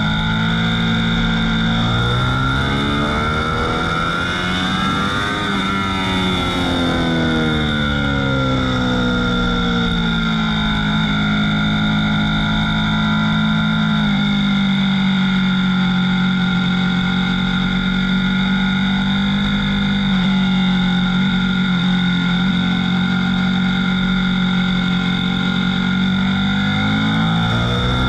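Ducati V4 S motorcycle's V4 engine under way on track, heard on board: the revs climb hard for a few seconds and fall back, then hold high and steady for a long stretch before dropping near the end, over a constant rush of wind noise.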